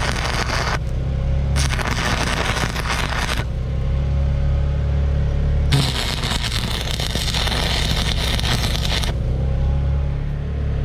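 Stick-welding arc crackling and sizzling in on-and-off stretches of one to three seconds as the electrode is struck and broken off, over a steady low hum.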